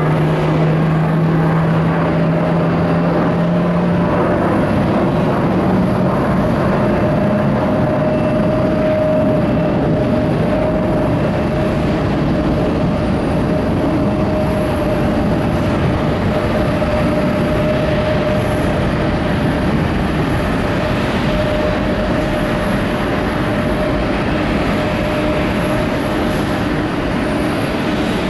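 Boeing 747's four jet engines running loud and steady, with a held whine throughout and a lower hum that fades out about four seconds in.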